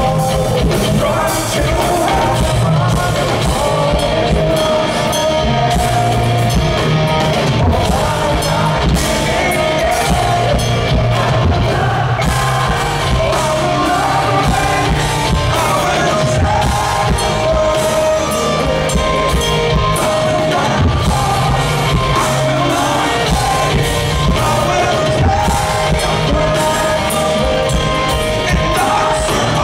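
Hard rock band playing live: a singer's lead vocal over a drum kit and bass guitar, loud and steady.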